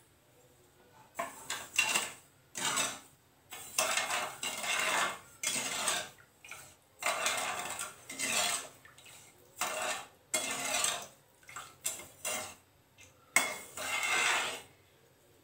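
Metal ladle stirring sugar and water in a metal kadai, scraping against the pan in a dozen or so short strokes with brief pauses between them, dissolving the sugar to start the syrup.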